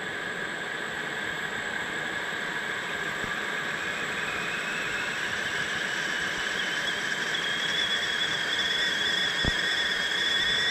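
Stainless-steel whistling kettle on a camping gas stove beginning to whistle as the water comes to the boil. Its thin whistle slowly rises in pitch and grows louder, and a higher, stronger whistle joins about halfway in.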